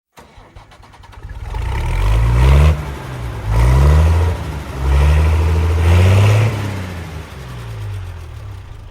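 A vehicle engine revving up three times, its pitch climbing and then dropping back each time, before easing off near the end.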